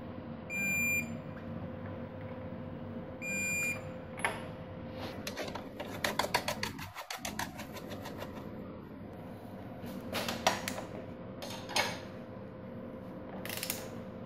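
Digital torque wrench beeping twice, each beep about half a second, the signal that the set torque on the rear axle nut has been reached. Then a fast run of ratchet clicks, and a few more clicks near the end.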